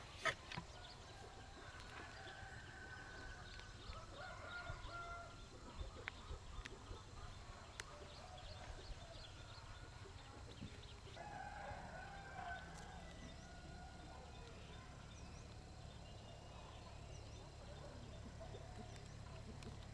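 A rooster crowing twice, once a couple of seconds in and again about halfway through. A single sharp knock comes right at the start, and faint short high chirps come near the end.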